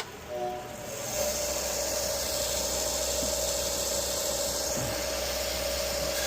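Belt sharpener running, with an Old Timer pocket knife blade ground against the abrasive belt to cut in the edge bevels: a steady motor hum with a hissing grind. The hum settles in about a second in, and the hiss of the grinding eases off well before the end while the motor runs on.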